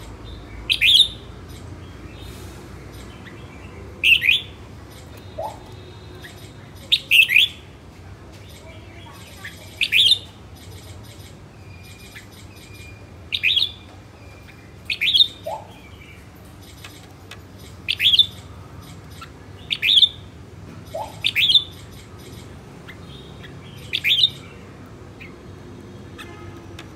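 Red-whiskered bulbul calling: short, sharp notes every two to three seconds, about a dozen in all, some in quick pairs, with a few fainter, lower notes between them.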